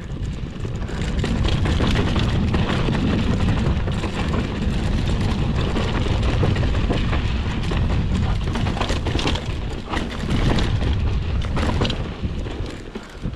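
Mountain bike rolling fast down a dirt singletrack: steady rushing wind and tyre noise on the camera's microphone, with scattered clicks and rattles from the bike over bumps, getting louder about a second in.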